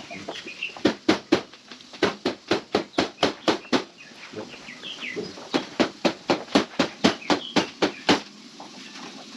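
Rapid hammer blows, about four a second, in two runs of around ten strikes each with a short pause between. Birds chirp faintly in the background.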